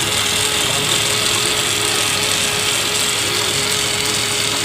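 A small electric motor running steadily at constant speed, a whirring hum with a strong hiss.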